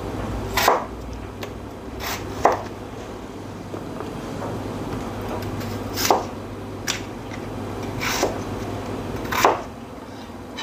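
Kitchen knife cutting peeled potatoes on a plastic cutting board: about seven separate knocks of the blade striking the board, irregularly spaced, over a steady low hum.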